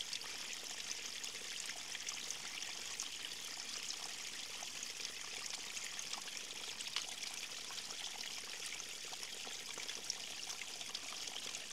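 Stream of water running and trickling steadily, with a hiss full of small splashes and burbles.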